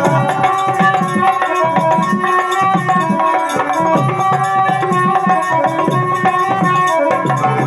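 Instrumental interlude of a devotional song: held melody notes over a steady drum rhythm.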